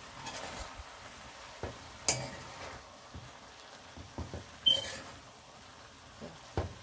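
A spoon stirring cooked greens and shrimp in a large metal pot, with soft scrapes and knocks against the pot, a sharp click about two seconds in and a short ringing clink near five seconds. A low sizzle from the pot cooking on the stove runs underneath.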